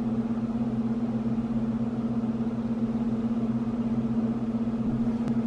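Steady low electrical hum at an even level, with no change in pitch.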